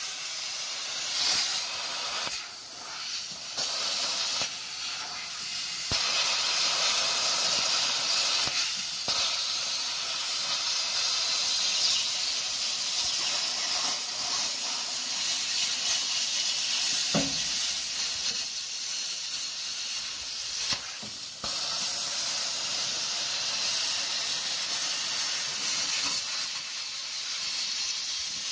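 Handheld plasma cutter cutting through car-body sheet metal: a steady hiss of the air-plasma arc, stopping briefly a few times as the torch is lifted and restarted.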